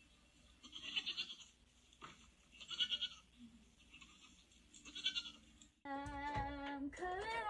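Goats bleating from a farmyard video played on a tablet's speaker: three calls about two seconds apart. Near the end a woman's voice sings a held note that then slides in pitch.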